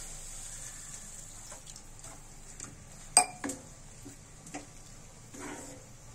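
A wooden spatula stirring mushroom masala in a cast iron skillet, knocking against the pan several times, the loudest about three seconds in, over a steady sizzle from the pan.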